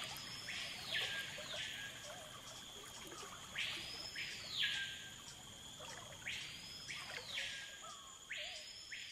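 Tropical forest ambience: a bird call repeated in overlapping pairs every few seconds, each note rising and then falling, over a steady high insect hum.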